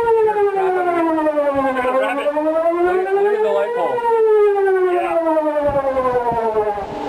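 Outdoor warning siren wailing, its pitch rising and falling smoothly in a slow cycle of about four seconds, highest about four seconds in.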